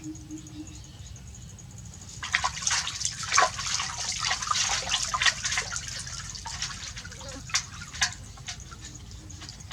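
Water splashing and dripping in a bath, a busy run of splashes starting about two seconds in, thinning to scattered drips and splashes near the end.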